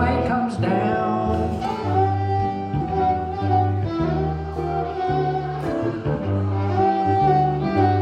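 Small acoustic string band playing an instrumental: a fiddle bowing the melody over a plucked upright bass and an archtop guitar.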